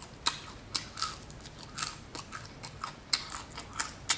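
A person chewing crunchy New York-style pizza crust: a run of irregular, crisp crunches, two or three a second.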